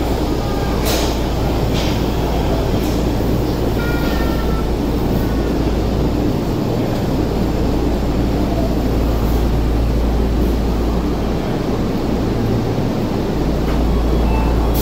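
Marunouchi Line subway train running into the station and slowing to a stop, heard as a steady low rumble. There are a few sharp clicks in the first seconds and brief high tones about four seconds in.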